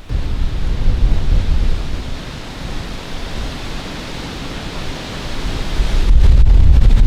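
Strong wind buffeting the microphone: a loud rushing hiss over a heavy low rumble, gusting up about a second in and again near the end.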